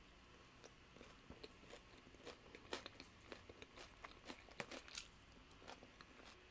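Tortilla nacho chips being bitten and chewed, a run of sharp crunches, thickest through the middle and tailing off near the end.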